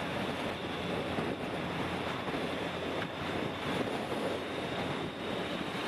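Steady rushing noise of wind on an outdoor microphone, with the faint sound of traffic on the course.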